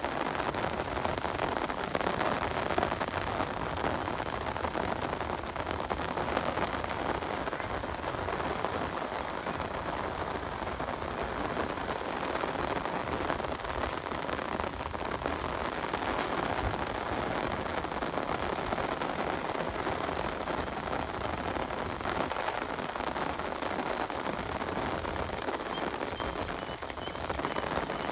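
Heavy rain falling steadily, an even hiss that holds without a break.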